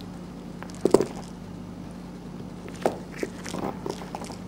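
Maine Coon kitten playing with a toy mouse on a wooden floor, its paws and the toy knocking on the boards. There is a sharp knock about a second in, another near three seconds, then a quick run of small taps and scrapes.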